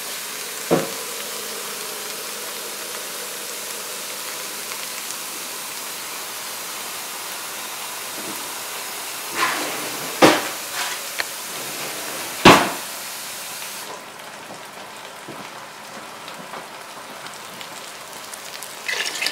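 Vegan sausage crumbles and onions sizzling in a frying pan, a steady frying hiss that drops lower about fourteen seconds in. A few sharp knocks of cookware come through it, the loudest about ten and twelve seconds in.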